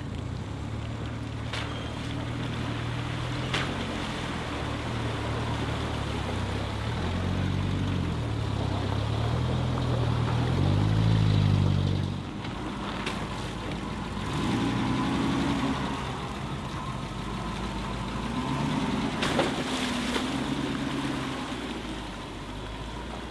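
Off-road buggy's engine revving up and down in repeated surges as it drives through a muddy water crossing, the strongest surge about halfway through, with a few sharp knocks along the way.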